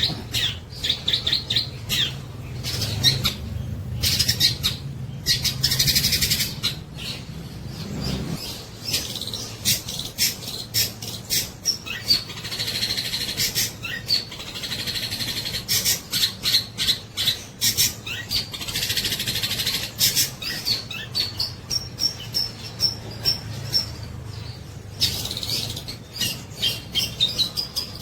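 Long-tailed shrike singing a rapid, chattering song with harsh rasping bursts every few seconds, mixing in mimicked collared kingfisher calls, including a run of evenly spaced clear high notes about two thirds of the way through.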